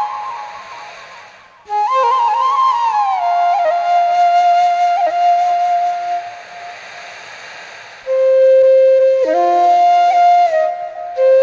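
Background music led by a flute playing long held notes with slides between them, in phrases. One phrase fades out about a second in, and new phrases begin near two seconds and again near eight seconds.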